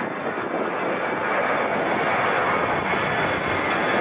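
Twin-engine jet airliner climbing out just after takeoff, its engines at takeoff power: a steady jet rush, growing slightly louder about a second in.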